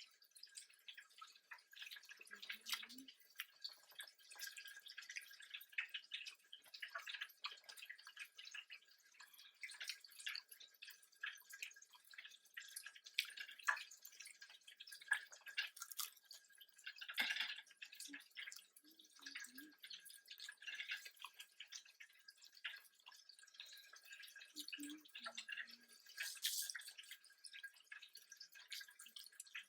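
Close-miked eating sounds: chewing with many small, irregular wet mouth clicks and smacks, quiet overall.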